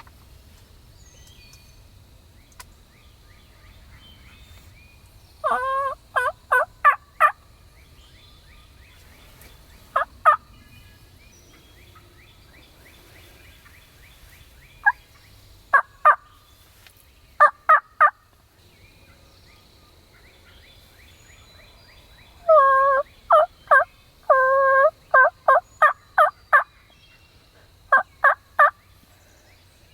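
Turkey yelping in several short runs of clipped, pitched notes, with pauses of a few seconds between the runs. The longest run comes about two-thirds of the way through.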